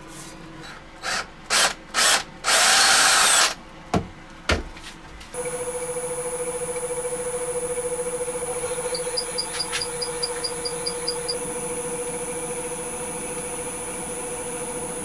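Abrasive rubbed against a spinning burl-and-epoxy-resin handle on a wood lathe in several short strokes, the longest about a second. About five seconds in, a steady lathe hum with a high whine takes over while a twist drill bit held in a tailstock drill chuck bores into the end of the spinning handle.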